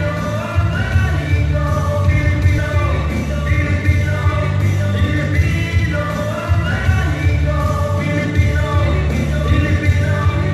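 A man singing live into a handheld microphone over music with a heavy bass line, both played through PA speakers in a large hall.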